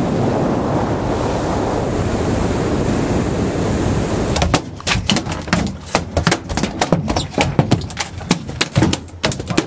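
Wind buffeting the microphone over the steady rush of water from a boat running offshore. About four and a half seconds in this gives way abruptly to a quick, irregular run of sharp slaps and knocks: a freshly landed dolphinfish (mahi-mahi) thrashing on the fiberglass deck.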